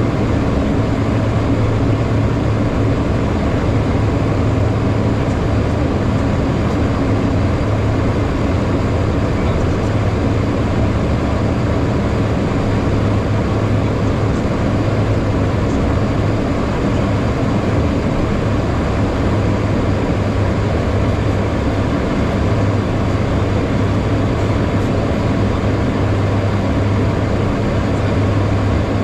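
Steady cabin noise inside a HondaJet's cockpit in flight: the rush of air over the airframe and the hum of its GE Honda HF120 turbofans, with a steady low drone and no change in pitch.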